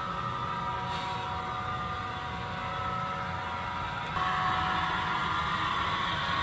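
Model train running on the layout: a steady whirring hum with a few held high tones, stepping up louder about four seconds in.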